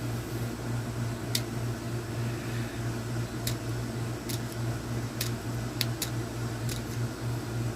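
Steady hum of a room air conditioner, with about seven sharp, light clicks scattered through as small electronic parts are handled and picked at.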